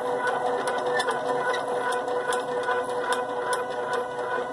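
Stepper motors of a homemade RAMPS 1.4 3D printer running, a steady whine on several fixed tones with irregular light ticks from the moving axis.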